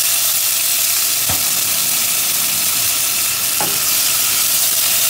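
Cumin seeds, green chilies and freshly added ginger-garlic paste sizzling steadily in hot oil in a nonstick pan. A wooden spatula stirring them sounds briefly against the pan twice, about a second in and again past three and a half seconds.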